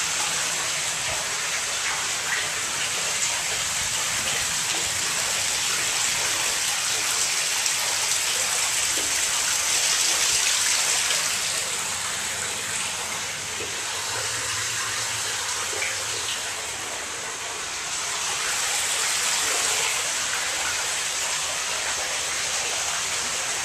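Steady rush of flowing water, an even hiss with no rhythm that eases slightly about halfway through.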